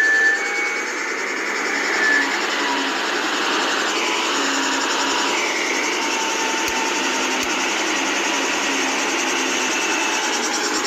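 Engine of earth-moving machinery running steadily during ground levelling and excavation, with faint whining tones that drift up and down in pitch.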